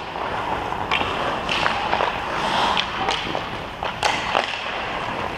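Ice hockey sticks striking pucks and skate blades scraping the ice, a string of irregular sharp clacks over a steady hiss, in a large indoor rink.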